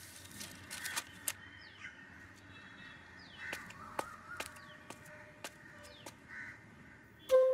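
Crows cawing a few times, separated by pauses, with small birds chirping and scattered sharp clicks. Near the end a flute melody starts, climbing in steps.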